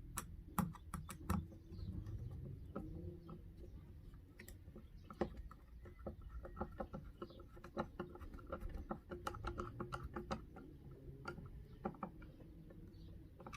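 Small irregular clicks and taps of a screwdriver and grip panel being handled while the second grip panel is screwed onto a CZ 75 SP-01 pistol frame.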